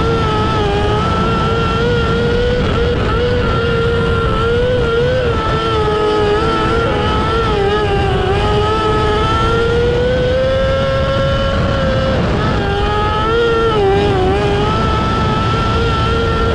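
Micro sprint car's motorcycle engine running hard at high revs, heard on board, its pitch holding steady with brief dips and rises a few times as the throttle eases and opens again.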